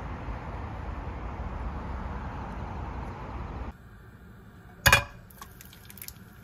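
Steady outdoor wind noise on the microphone, which cuts off suddenly to a quiet kitchen. About five seconds in there is one sharp crack of an egg being broken for frying, followed by a few faint clicks.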